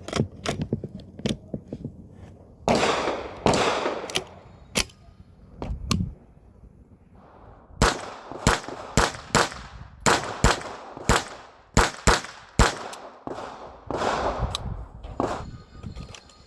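Ruger 10/22 .22 LR rifle firing a series of shots, sharp cracks coming about two a second through the second half, with several longer noisy bursts in between.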